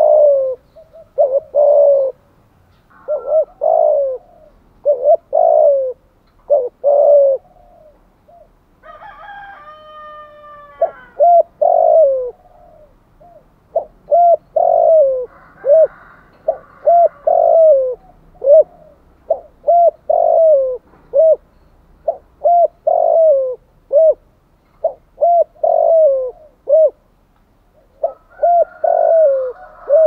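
Spotted dove cooing rapidly: short coos in quick groups of two or three, over and over, the fast 'thúc gù' cooing series. About nine seconds in, a different, higher call with several stacked tones briefly takes over.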